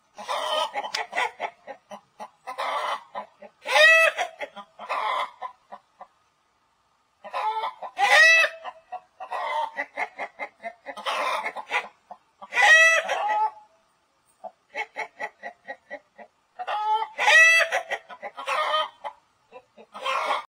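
Domestic chickens clucking in quick clusters, with a louder, drawn-out call repeating about every four to five seconds.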